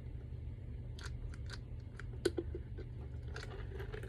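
Small clicks, taps and plastic rustling from a PVC jelly handbag and its clasp being handled, with one sharper click a little over two seconds in.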